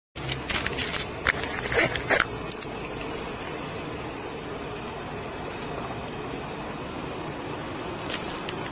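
Rustling and several sharp clicks as clothing and hands brush a body-worn camera's microphone in the first couple of seconds, then a steady background hum.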